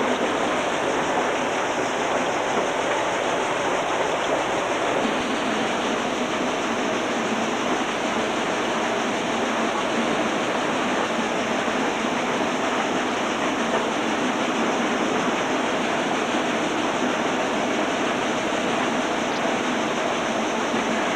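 Multipurpose thresher running, a steady, even rushing noise with no clear beat.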